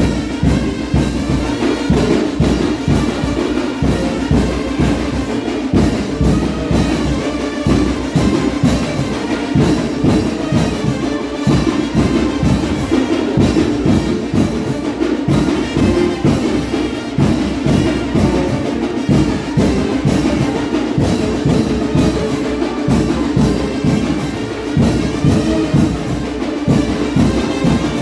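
Brass band playing Chinelo dance music, brass melody over a steady, driving drum beat.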